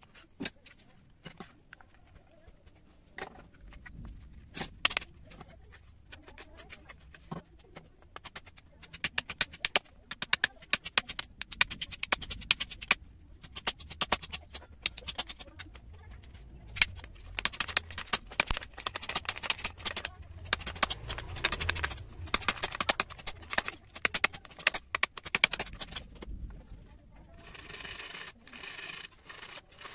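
A knife blade shaving and cutting a small piece of wood against a wooden stump, first as scattered clicks, then as rapid scraping cuts. Near the end, a hand saw rasps through a wooden stick for a couple of seconds.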